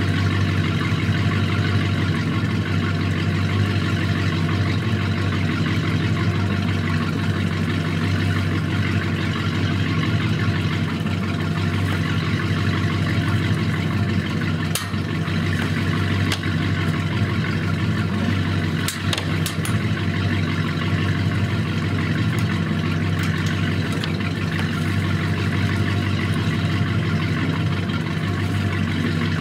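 Ski boat's inboard engine idling steadily out of the water on its trailer, with a few light clicks about halfway through.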